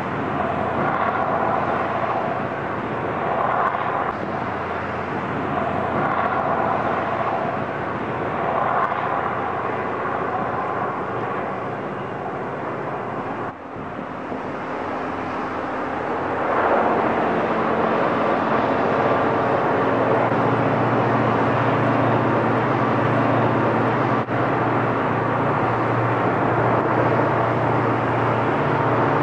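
EMD diesel locomotive engines working a freight train. For the first half the drone swells and fades every two to three seconds. After a short dip it becomes louder and steadier, with a low hum underneath.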